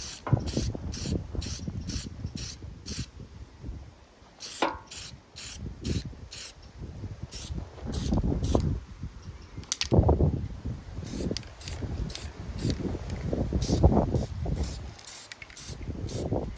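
Aerosol spray paint being sprayed in rapid short bursts, about three a second, with short pauses between runs, while wind rumbles on the microphone.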